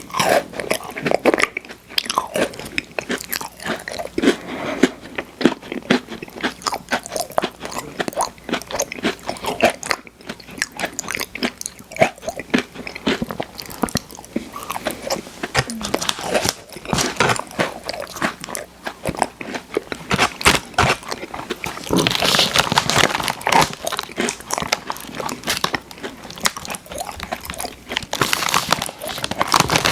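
Close-miked crunching and chewing of crisp Oreo sandwich cookies, a dense run of crackly bites with louder crunching about two-thirds of the way in and again near the end.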